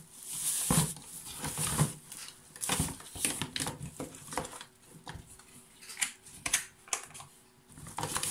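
Rummaging through a box of loose loudspeakers and parts: irregular clattering and knocking of hard objects against each other.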